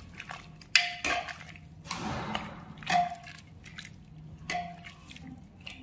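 Metal spoon stirring soft boiled kidney beans in a pressure cooker: wet squelching, with the spoon knocking against the side of the pot about four times, each knock ringing briefly.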